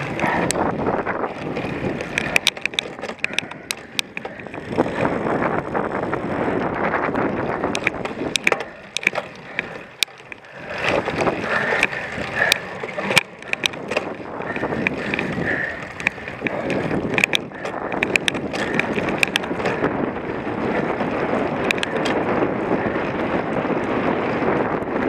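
A cyclocross bike ridden over rough ground: knobby tyres rolling on dirt, with frequent clicks and rattles from the bike and wind on the microphone. The rolling noise drops away briefly about ten seconds in, then picks up again.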